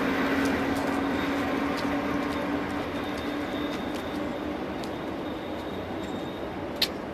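Berlin S-Bahn class 477 electric train running away from the listener: its running noise and a steady low hum fade as it recedes, with a few faint clicks of wheels over the rails. A single sharp click sounds near the end.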